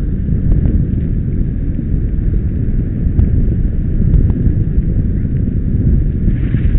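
Wind buffeting an action camera's microphone over the rumble of a bike rolling fast downhill on asphalt, with a few sharp clicks. A hiss rises near the end.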